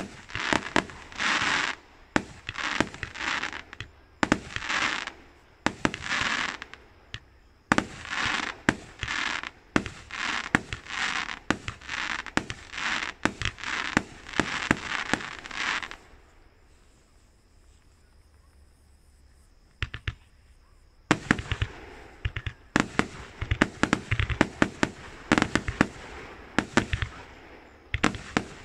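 A multi-shot fireworks cake firing from the ground, with bangs and short noisy bursts coming about once a second. A pause of a few seconds falls in the middle, then a fast, dense volley of bangs near the end.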